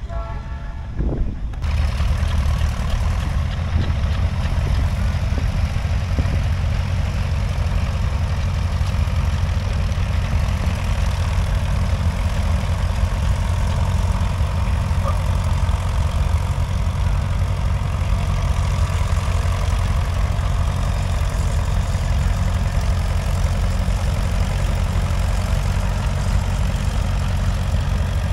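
A Farmall tractor's engine running steadily while it is hitched to a tractor-pull sled. The engine sound comes in abruptly about two seconds in and then holds even, with no revving.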